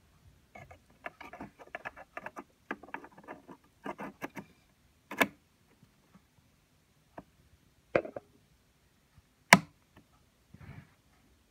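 Hands working hardware during an iMac memory upgrade: a quick run of small clicks and scrapes, then three sharp clicks a few seconds apart, the third the loudest, and a brief rustle near the end.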